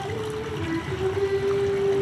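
Music: a simple tune of slow, held notes, one held for about a second in the second half.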